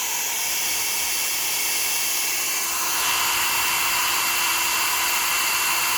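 Handheld hot-air dryer running steadily, blowing hot air to shrink heat-shrink tubing over a soldered wire joint. Its fan hiss carries a faint steady whine and grows slightly louder about halfway through.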